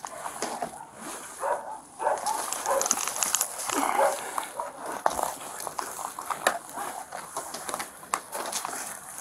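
A cornered feral dog vocalizing in short irregular bursts, barks and whines, as it is prodded from its hiding spot with a catch pole, with scattered knocks.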